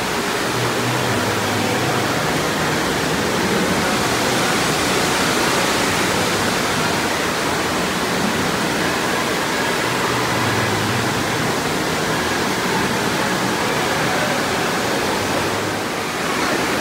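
Steady rush of water pouring and swirling down a bowl water slide, a loud, even hiss with no breaks.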